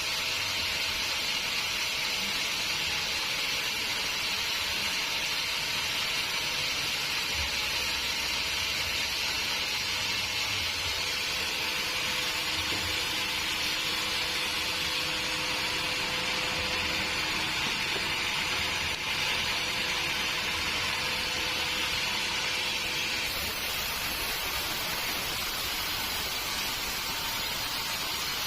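Sawmill machinery running steadily with an even hiss. The hiss changes character near the end.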